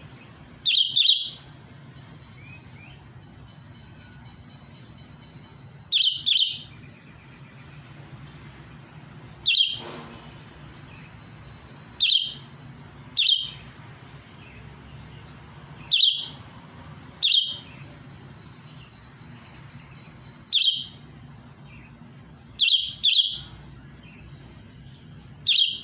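Sooty-headed bulbul (cucak kutilang) giving short, sharp calls every two to four seconds, often two in quick succession, calling out to a rival. A faint steady low background noise runs underneath.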